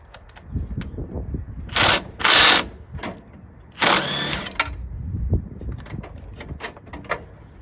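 Impact driver run in three short bursts, about two seconds in, just after, and about four seconds in, backing out the 7/16 battery terminal bolts on a lawn tractor. Light clicks and knocks of handling come between the bursts.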